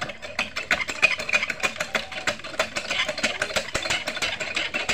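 Small single-cylinder diesel engine running at a steady idle, with a rapid, even knocking beat.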